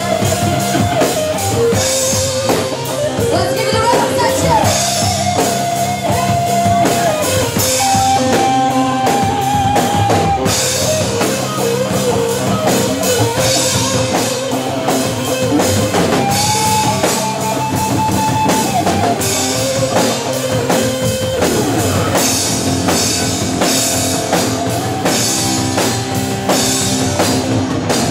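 Rock music with a drum kit and guitars, a held melody line over a steady beat.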